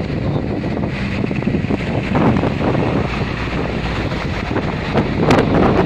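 Strong wind buffeting the microphone over the wash of waves, with louder gusts about two seconds in and near the end.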